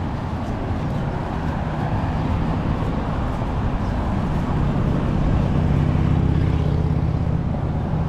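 Street traffic: a motor vehicle's engine rumbling past close by, growing louder to a peak about six seconds in and then easing off.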